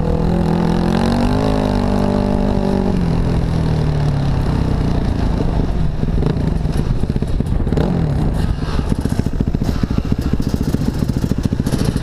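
Dirt bike engine heard from the rider's helmet. It revs up about a second in and eases off by about three seconds, then settles into a lower, rapidly pulsing run, with wind noise over the microphone.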